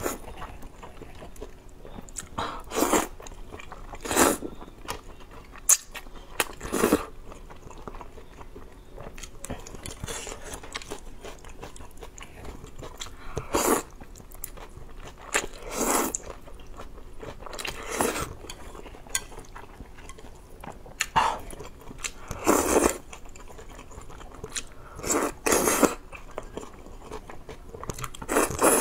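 Wide noodle sheets (mianpi) being slurped up from a bowl of broth, a loud wet slurp about a dozen times at uneven gaps of a second or two, with chewing in between.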